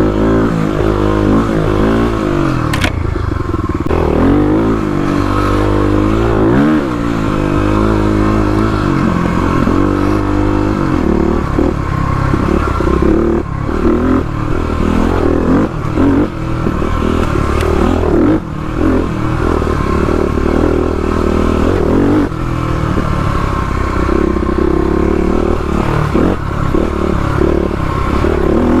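Stage 3 modified Kawasaki KLX351 dirt bike, a single-cylinder four-stroke, ridden on a trail: the engine revs up and falls back again and again as it is worked through the gears.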